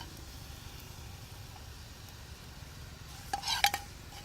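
A spoon stirring a thick ginger-and-jaggery mixture sizzling faintly in a pan. About three and a half seconds in, the spoon knocks and scrapes against the pan a few times, with a short ring.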